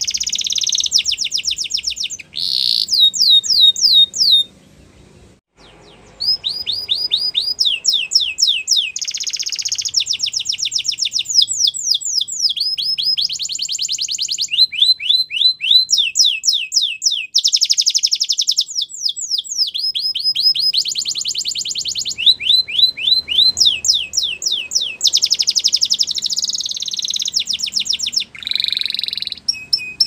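Canary singing a long song of rapid trills, each phrase a quick run of repeated falling notes, the phrases changing one after another, with a pause of about a second and a half about four and a half seconds in.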